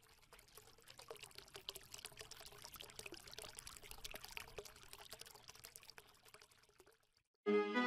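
Faint trickling, bubbling water sound, a dense crackle of tiny clicks. Music cuts in loudly near the end.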